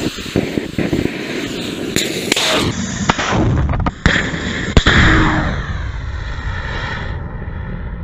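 Nitrous-oxide bipropellant liquid rocket motor firing at liftoff: a loud, rough crackling roar with sharp pops, broken by abrupt cuts. It dies away over the second half.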